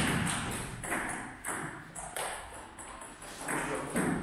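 Table tennis ball knocked back and forth in a rally: a string of sharp clicks off the paddles and table, about one every half second to second, each with a short echo off the room's hard walls.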